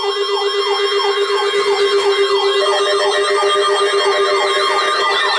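Several electronic emergency-alert alarms going off together for a flood warning: overlapping siren-like tones sweeping rapidly over and over at different rates, above one steady tone. The alarms start sharply at the beginning.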